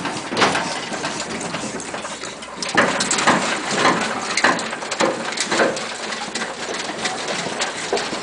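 A toddler's vocal sounds, short squeals and laughing bursts, with a run of them about every half second in the middle.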